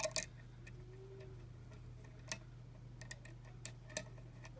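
Small irregular metallic clicks of a hook pick and tension wrench working the pins of a pin-tumbler lock, with pins ticking as they set. A steady low hum runs underneath.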